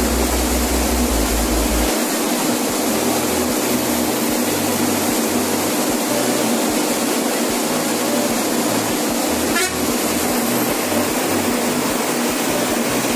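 Passenger bus driving fast along a highway at night: loud, steady road and engine noise, with a horn sounding. A short sharp knock comes about ten seconds in.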